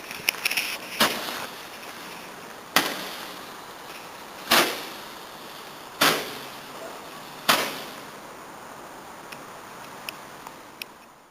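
Consumer firework firing a series of sharp pops about every one and a half seconds over a steady hiss, then a few faint crackles near the end.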